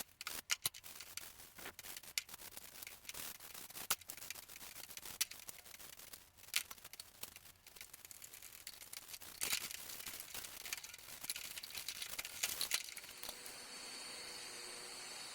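Hand work on small metal parts: irregular scraping and rubbing with scattered sharp clicks and knocks. Near the end a steady hiss starts and continues.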